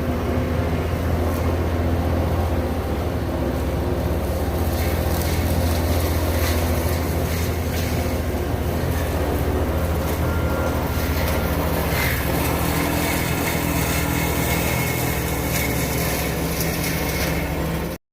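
Heavy diesel land-clearing machinery running steadily, a deep engine drone with occasional knocks and cracks over it. It cuts off suddenly at the very end.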